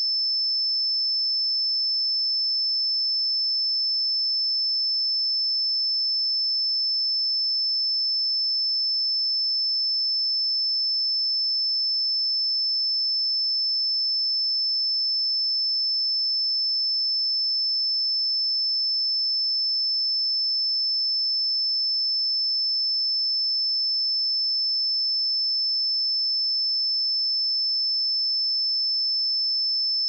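A steady pure sine-wave test tone at 5272 Hz, a single high-pitched whistle held at constant pitch and level.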